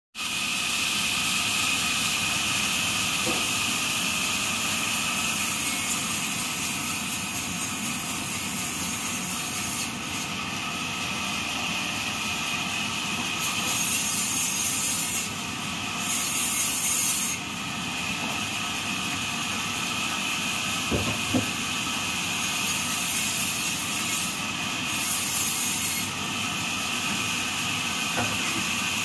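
Automatic band saw blade sharpener running, its grinding wheel giving a steady grinding hiss on the blade's teeth. It has a few louder, brighter spells.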